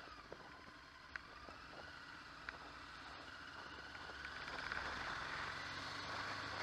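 A motorcycle in motion, heard from a camera on the bike: engine note and wind noise. The engine note dips at the start, then climbs steadily and grows louder as the bike speeds up.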